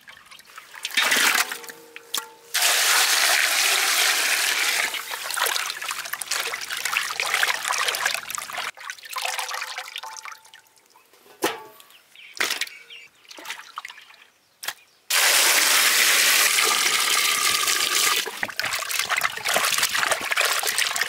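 Water splashing and trickling as cut pieces of Spanish mackerel are rinsed by hand in a metal basin, then tomatoes are sloshed by hand in a metal pot of water. It comes in two long loud stretches with a quieter, broken spell in the middle.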